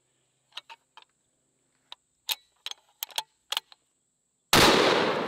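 Sharp metallic clicks of a bolt-action .577 Tyrannosaur rifle being loaded with a 750-grain round and its bolt worked. About four and a half seconds in comes a single, very loud gunshot from the rifle.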